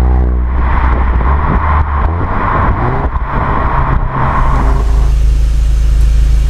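2014 VW Golf 7 GTI's 2.0-litre turbocharged four-cylinder heard at the tailpipe on the move. A steady drone gives way, about half a second in, to a rushing noise broken by several sharp cracks from the exhaust, the burps of the DSG gearbox's gear changes. About five seconds in it switches to the car idling at standstill with a steady low hum.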